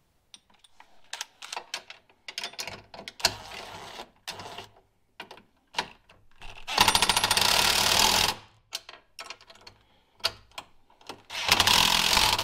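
DeWalt cordless impact driver hammering bolts in, in two loud rapid-rattle bursts: one of about a second and a half, roughly seven seconds in, and a shorter one near the end. Before them come light clicks of tool and bolt handling and a softer short run of the driver.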